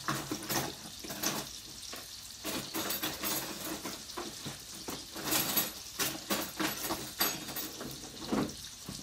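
Irregular rustling and scraping of baking utensils being handled, with a run of short sharp strokes.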